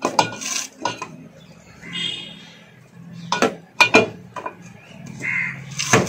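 Metallic clanks and sharp knocks from a long socket wrench being worked on the centre bolt of an LG direct-drive washing machine's rotor, its handle knocking against a brick that braces it. The knocks come singly and irregularly, the loudest near the end.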